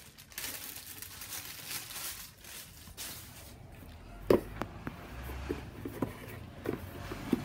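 Handling noise: rustling, then a handful of short sharp knocks from about four seconds in, the first the loudest, as things are picked up and moved about.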